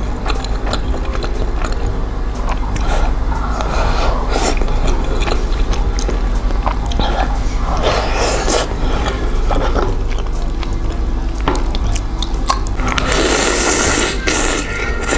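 Close-miked chewing of mouthfuls of fried rice, with occasional short clicks and scrapes of a spoon.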